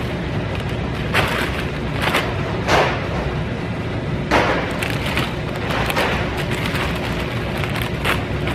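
Large bags of chips crinkling and rustling in several short bursts as they are grabbed off a stacked display and loaded into a shopping cart, over a steady low rumble.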